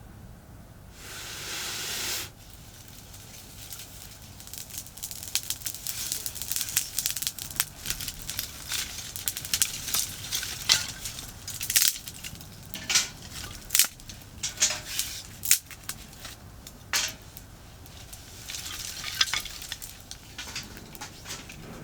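Wood campfire catching: thick crackling and popping of burning kindling, busiest in the middle, after a short hiss about a second in.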